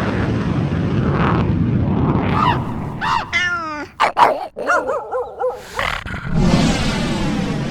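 A dog whining and yipping in several short pitched calls, between stretches of steady rushing noise from neighbouring effects.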